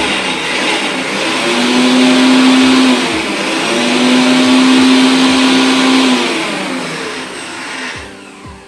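Electric mixer grinder running loud, grinding ginger, green chilli and garlic into a paste. Its pitch dips briefly about three seconds in, then it winds down with a falling pitch and stops near the end.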